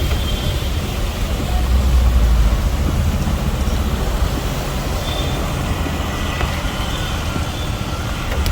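Street traffic: motor vehicle engines and road noise rumbling steadily, a little louder about two seconds in.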